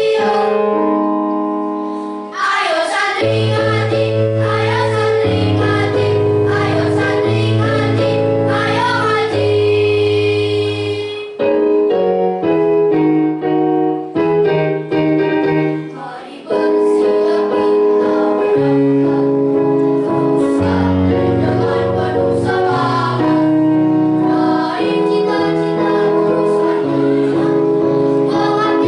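Children's choir singing over an instrumental accompaniment, mostly in long held chords; about halfway through the voices switch to a run of short, separated notes for a few seconds before returning to sustained singing.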